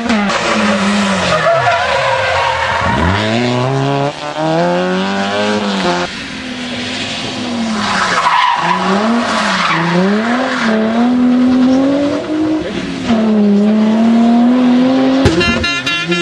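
Rally car engine revving hard, its pitch repeatedly dropping and climbing through gear changes and braking, with tyre squeal and skidding at times. Near the end there is a short burst of rapid crackling.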